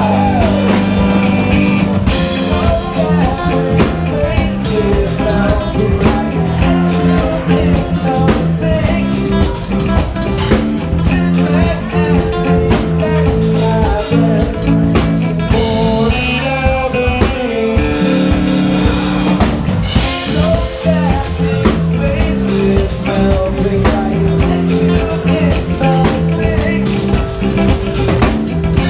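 Live band playing a song with electric guitar, electric bass, keyboards and drum kit.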